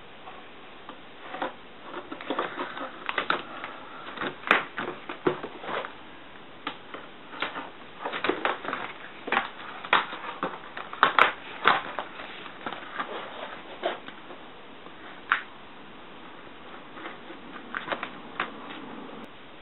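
Craft knife cutting through a corrugated plastic (Corex) sheet on a wooden bench: irregular clicks and crackles as the blade goes back over the cut.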